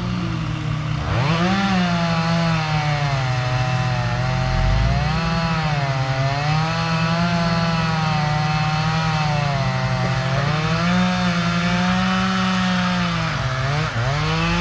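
Chainsaw revving up about a second in and then running under load, its engine pitch sagging and recovering as it cuts wood, with a brief dip near the end.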